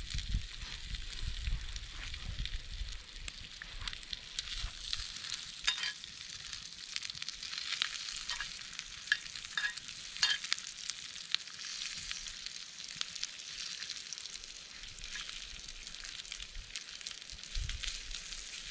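Food frying in a pan, a steady sizzle with scattered pops and crackles. A low rumble comes in the first couple of seconds and again near the end.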